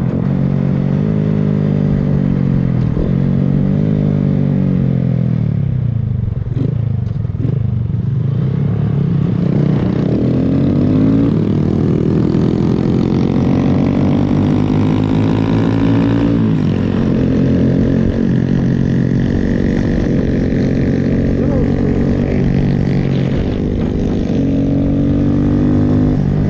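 Honda Grom's small single-cylinder four-stroke engine under way, pitch climbing as it pulls and dropping back at each gear change or roll-off, several times over.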